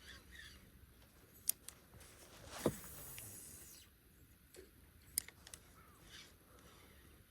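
Small sounds of fishing from a boat: a couple of sharp clicks of tackle, and about two and a half seconds in a low knock followed by a short rushing noise, with faint bird chirps now and then.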